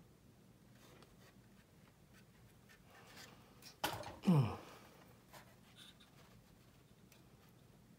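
Faint handling noises of thin masking-tape strips and tweezers being worked around a plastic scale-model fuselage, with a few soft clicks and rustles. About four seconds in there is a sharp click, then a short, louder breathy huff that drops in pitch.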